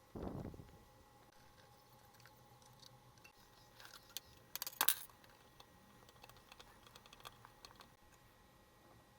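Scattered light clicks and taps, with a short cluster of sharper clicks about five seconds in and a dull thump just after the start, over a faint steady hum.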